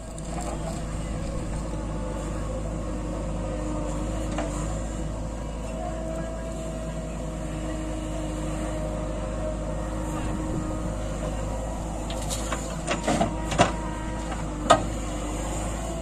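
JCB backhoe loader's diesel engine running steadily as the backhoe digs. A few sharp knocks come about three-quarters of the way through, the loudest near the end.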